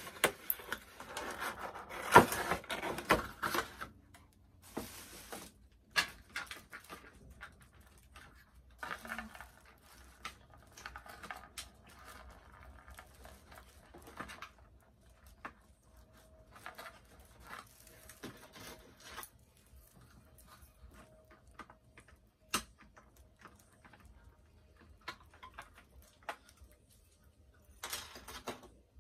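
Cardboard and plastic toy packaging being handled: a loud rustle in the first few seconds, then intermittent crinkling, taps and sharp clicks.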